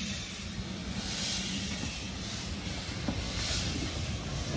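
Steam engine running: a steady hiss of steam over a low mechanical rumble.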